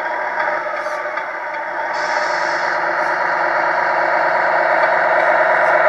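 Tamiya Grand Hauler radio-controlled truck driving with a steady mechanical running sound that grows louder as it approaches. There is a short hiss about two seconds in.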